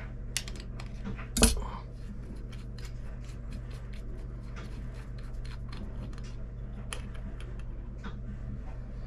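Wrenches and carburetor parts clinking as the 13 mm float-bowl nut is undone: one louder metal clank about one and a half seconds in, then light, scattered clicks and taps.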